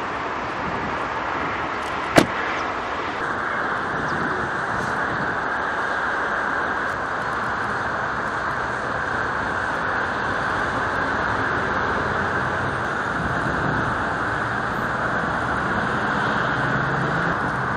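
Steady vehicle and traffic noise with a single sharp click about two seconds in.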